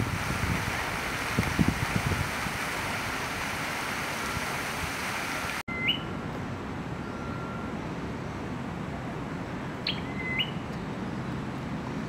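Wind noise on the microphone with a few low thumps. Then, after a cut, a Malaysian pied fantail gives three short chirps, each a flat note that flicks up in pitch: one about halfway through and two close together near the end.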